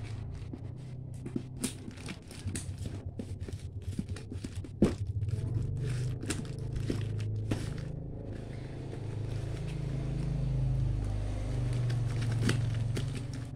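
Scissors snipping and scraping through packing tape on a cardboard box, with irregular clicks and crackles of tape and card and one sharper click about five seconds in. A steady low rumble sits underneath.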